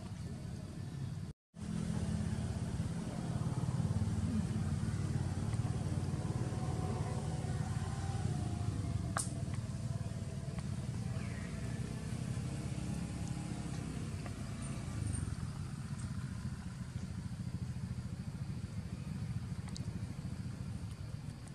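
A steady low outdoor rumble, with a single sharp click about nine seconds in.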